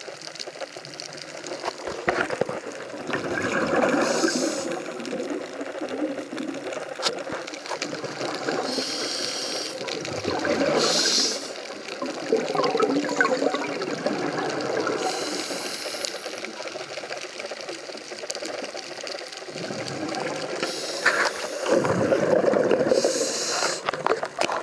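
Underwater sound of a diver breathing: short hissing inhalations alternating with bubbling exhalations, repeating every few seconds over a steady watery background.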